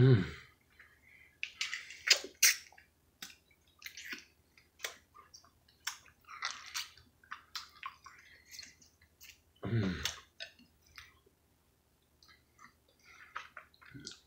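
Close-up wet chewing and sucking as ripe mango flesh is bitten and sucked off the skin and seed, in short irregular bursts. A brief low hum of pleasure comes at the start and again about ten seconds in.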